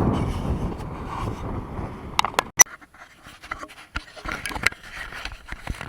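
Handling noise from a pocketed camera being fumbled and taken out: irregular clicks, knocks and rubbing. Before it, a low rumble fades out over about the first two seconds.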